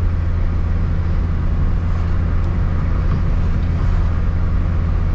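Turbocharged F20B four-cylinder engine of a 2002 Honda Accord running at a steady speed, heard from inside the cabin as a steady low drone mixed with road noise, with no revving.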